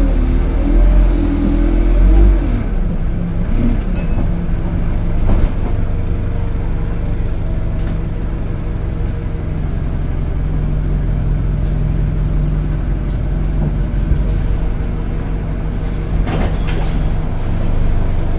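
Single-deck bus heard from inside the passenger cabin while under way: the engine and drivetrain run with a continuous low rumble. Its pitch rises and falls over the first few seconds, then settles into a steadier hum, with a few light knocks and rattles.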